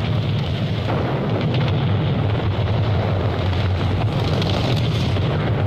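Artillery barrage: shell explosions running together into a continuous heavy rumble, with no single blast standing out.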